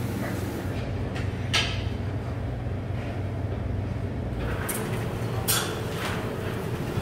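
Restaurant kitchen background: a steady low hum of machinery with a few brief clatters or scrapes, one about a second and a half in and a few more around five to six seconds in.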